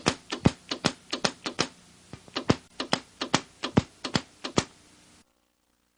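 High-voltage sparks standing in for lightning, snapping in quick irregular succession (about four a second) onto a model house's lightning-rod air terminals; they stop abruptly about five seconds in.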